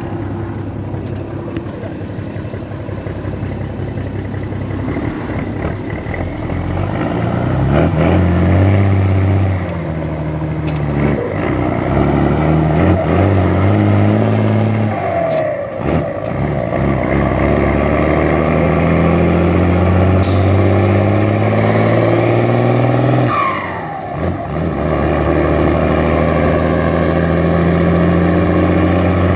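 Mercedes-Benz 1113 truck's six-cylinder diesel engine rumbling through its exhaust. The engine note climbs several times and dips briefly about 10, 16 and 24 seconds in, as when the engine is worked up through the revs and let back.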